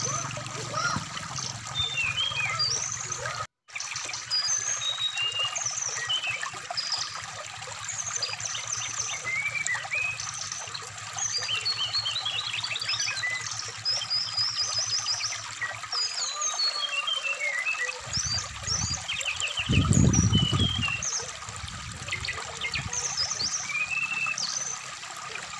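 Brown-chested jungle flycatcher (sikatan rimba dada coklat) singing a run of short, varied chirps and whistles over a trickling stream. The sound cuts out for a moment about three and a half seconds in, and a low rumble swells briefly about twenty seconds in.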